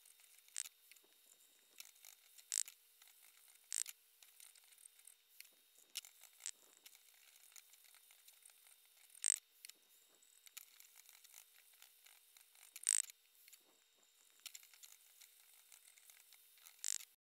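Finely chopped onions softly crackling and sizzling in a nonstick frying pan as they cook down to a deep caramel brown, with a spatula now and then scraping and tapping sharply against the pan. A faint steady hum runs underneath.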